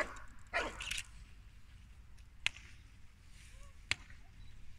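A dog barks twice in quick succession, then two sharp cracks sound about a second and a half apart.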